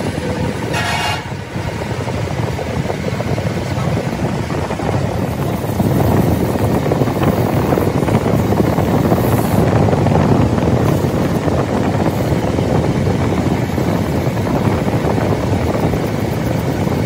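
Workshop machinery running steadily, a dense mechanical rumble that grows louder about six seconds in.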